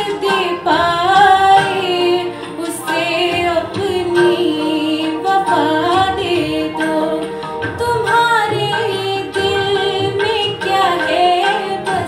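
A girl singing Indian classical vocal music: a sliding, ornamented melodic line over a steady drone accompaniment.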